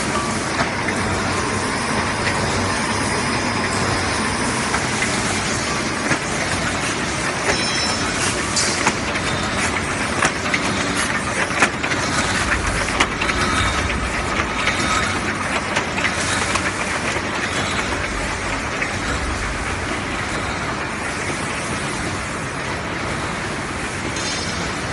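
Paper sack making machine running: a steady, dense mechanical clatter from its rollers and folding mechanism, with many small clicks and knocks.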